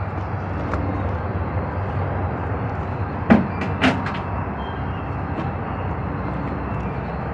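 Steady outdoor rumble, with two sharp knocks about half a second apart a little over three seconds in.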